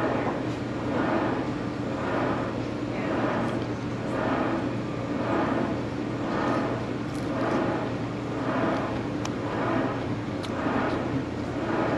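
A steady motor drone with a low hum, swelling and fading about once a second.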